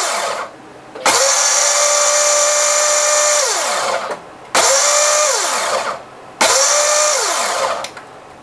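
Ninja Blender Duo's 1500-watt motor blending a NutriCup of fruit, juice and ice on its Auto IQ Ultra Blend program. The program runs the motor in separate bursts: each spins up quickly, holds a steady whine, then winds down in falling pitch and stops for a moment. One run ends about half a second in and three more follow.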